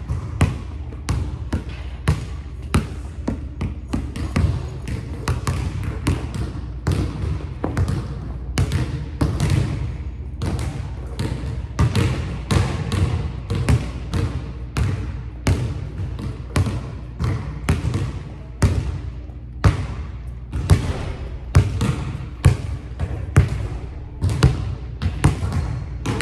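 A basketball is dribbled on a hardwood gym floor, bouncing about twice a second, each bounce echoing in the large, empty hall.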